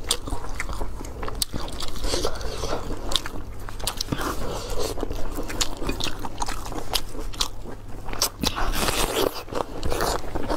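A person biting into and chewing crisp food right at a clip-on microphone: a close, continuous run of sharp crunches, crackles and wet mouth sounds.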